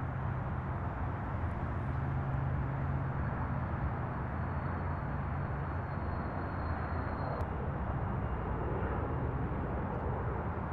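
Twin-engine business jet climbing away after takeoff: a steady jet engine rumble.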